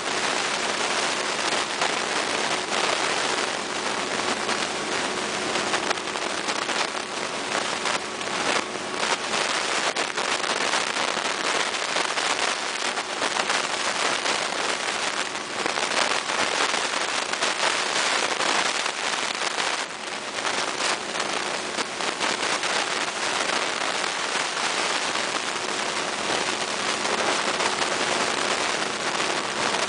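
Steady crackling hiss from a faulty recording microphone, loud and full of small crackles, over a faint steady hum from the MAN Lions City Hybrid city bus as it is manoeuvred.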